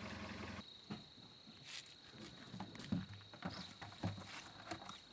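Car engine idling, then switched off about half a second in. After it stops, a thin steady high-pitched tone and scattered small clicks and knocks remain.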